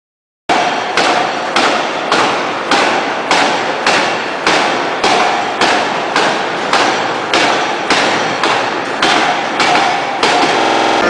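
Fully hydraulic open-die forging hammer striking a red-hot steel shaft in a steady rhythm, a little under two blows a second, each blow ringing briefly. The blows begin about half a second in and stop shortly before the end, where a steady machine noise takes over.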